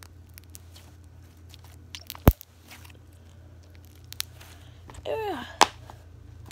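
Homemade slime being squeezed and pinched between the fingers: small wet crackling clicks, with one loud sharp pop a little over two seconds in and two smaller pops later.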